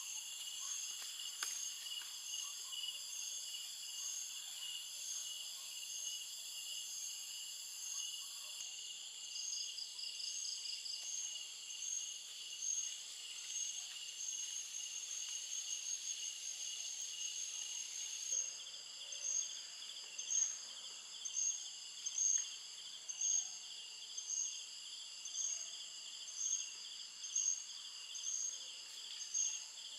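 Night-time insect chorus of crickets and other insects, with steady high trilling throughout. About two-thirds of the way in, a louder high call joins, pulsing about once a second.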